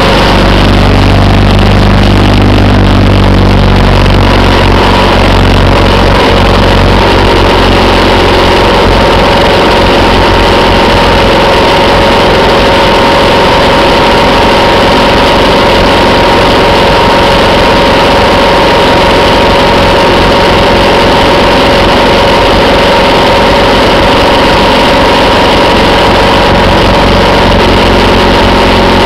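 Motorcycle engine running loud and steady at cruising speed, heard from the moving bike, with a steady rush of air and road noise. Its low rumble is heavier in the first few seconds, then settles.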